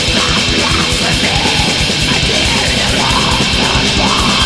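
Black metal band playing fast: heavily distorted guitars over dense, rapid drumming, loud and steady throughout.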